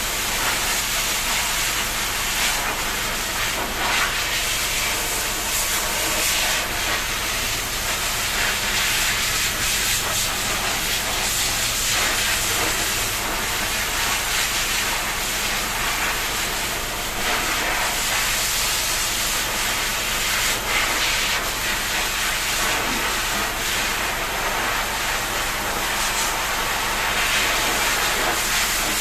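Water spraying steadily from a shower, a continuous even hiss.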